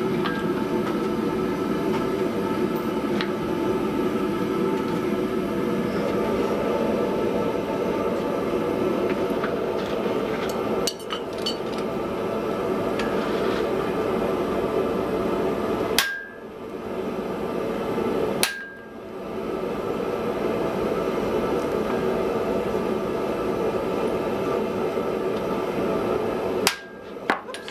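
Hand hammer striking hot wrought iron on the anvil a handful of times, the clearer blows each followed by a short ring from the anvil, over a steady loud roar.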